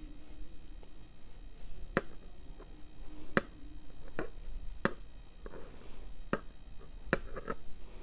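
A pencil tip tapping dots onto fabric laid over a hard table, with a plastic ruler beside it as a guide: about seven sharp, irregular clicks spread over several seconds.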